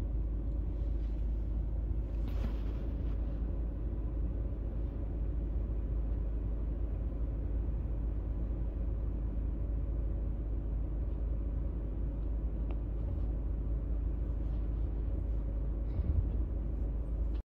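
Steady low rumble of a car travelling, heard inside the cabin, with a brief louder bump near the end.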